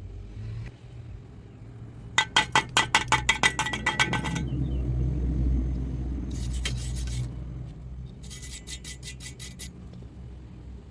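Metal struck rapidly with a ringing tone, about six blows a second, in three bursts: the first about two seconds in, a short one in the middle, the last near the end. A low rumble runs underneath.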